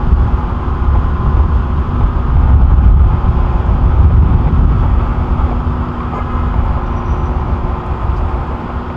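Steady low rumble of idling vehicle engines and street traffic, with a constant hum running through it.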